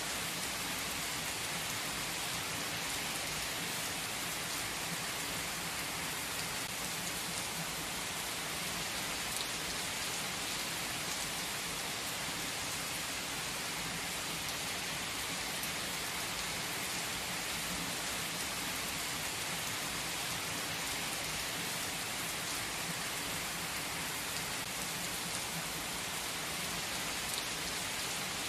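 Heavy rain pouring onto an asphalt car park and parked cars, a dense, steady hiss with no let-up.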